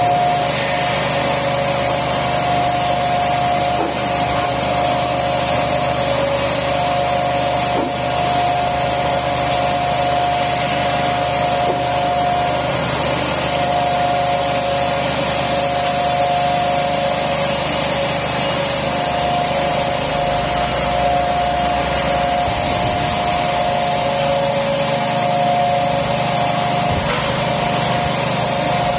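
Polystyrene concrete block production line machinery running: a steady loud hiss with two steady whining tones that break off briefly now and then, and a few faint knocks.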